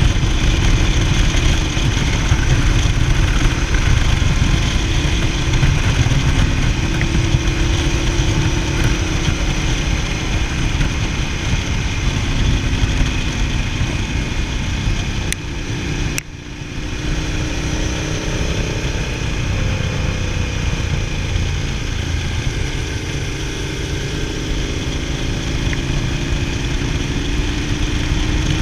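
Motorcycle engine, the Ducati Multistrada 1000DS's air-cooled L-twin, running under way on a climb, its pitch sliding up and down with the throttle, under heavy wind rush on the microphone. The sound dips briefly a bit past halfway.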